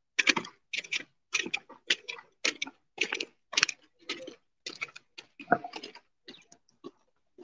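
Cadets' boots stamping in marching step, a regular beat of about two steps a second that fades after about six seconds as the marchers move away.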